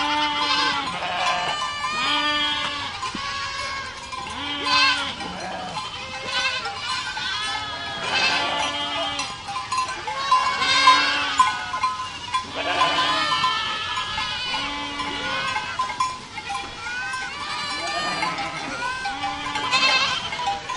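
A herd of goats bleating, many calls overlapping and following one another without a break.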